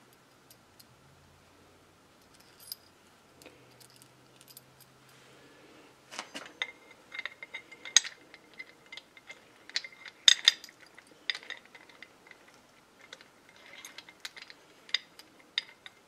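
Steel bolts, washers and spacers clinking against one another and against the differential's steel mounting plate as they are handled and threaded in by hand. Mostly quiet for the first six seconds, then a run of sharp metallic clicks and clinks, the loudest about eight and ten seconds in.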